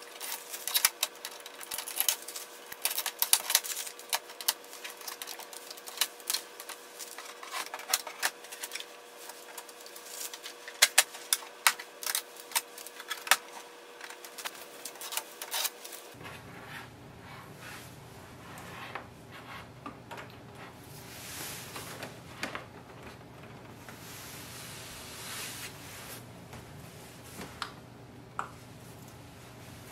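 Blue packing tape being peeled off an Epson WorkForce Pro WF-4830 printer's plastic panels, with dense irregular crackles and sharp clicks. About halfway through, the background changes abruptly to a low steady hum, and the handling of the printer's lid and control panel goes on more quietly with occasional soft clicks.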